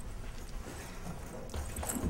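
Footsteps walking along a hallway, with one clear step near the end.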